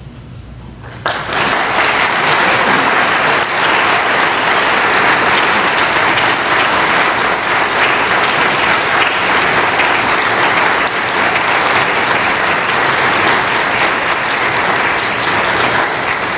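Audience applause breaking out suddenly about a second in and then going on steadily as dense clapping from a large crowd.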